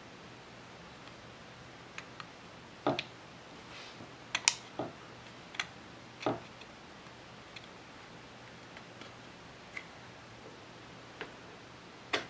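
Small, irregular clicks and taps of tweezers and tiny strapped deadeyes against the wooden mast top of a ship model as the deadeyes are fitted into its rim. There are about a dozen separate clicks, with the loudest clusters about 3 and 4.5 seconds in. A faint steady hum sits underneath.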